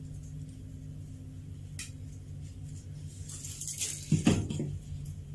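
Fluorescent tube being handled and laid down on a wooden workbench: a light click about two seconds in, some clinking as it is moved, then a knock a little after four seconds as it comes to rest, the loudest sound, over a steady low hum.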